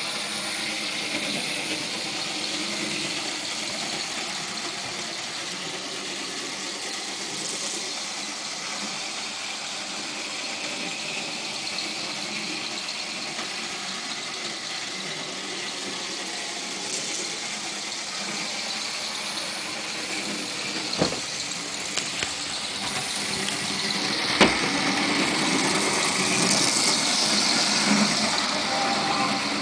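N scale model train running on its track: a steady whir of the small electric motor and wheels on the rails, growing louder over the last few seconds as the train comes close. Two sharp clicks about two-thirds of the way through.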